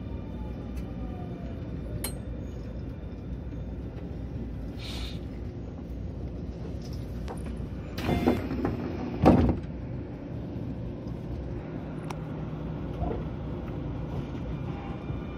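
Keio 9000 series train running, heard from inside the car, with a steady low rumble. The whine of its Hitachi IGBT VVVF inverter glides down in pitch over the first two seconds. Two loud knocks come about eight and nine seconds in, and near the end a fresh inverter whine starts to rise.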